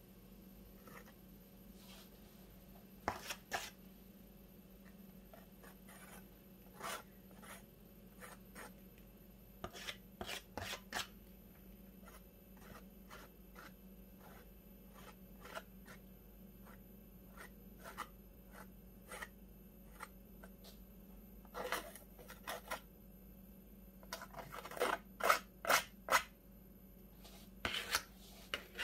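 Palette knife scraping and tapping paint onto a canvas and palette: short, scattered scrapes and clicks, in denser, louder runs toward the end.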